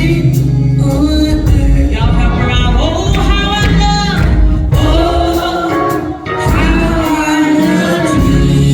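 Gospel singing with several voices, over a steady bass and drums.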